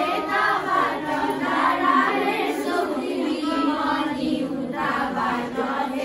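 A class of schoolchildren singing together in unison, many voices at once, steady throughout.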